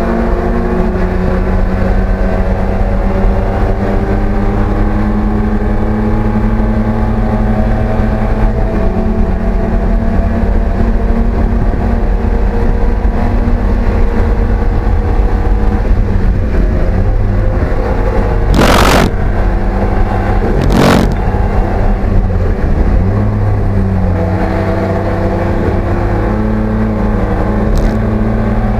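Race car engine at speed, heard from inside the cockpit, with its note stepping up and down as the car shifts and lifts. About two-thirds of the way through come two short, loud bursts of noise about two seconds apart.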